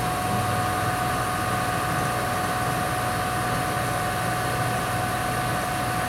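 Haas VF-2B CNC mill's spindle running at 1,000 RPM with a rotary wobble broach feeding into a brass nut, cutting a hexagonal hole: a steady machine hum and whine, with a second, higher whine joining right at the start.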